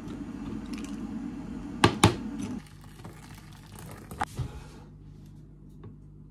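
Pieces of a milk chocolate bar clicking into a small glass cup as they are broken in, with two sharp clinks about two seconds in. Then a fainter hiss of hot water poured from an electric kettle into a plastic bowl, with a few light knocks as the glass cup is set into the bowl for a water bath.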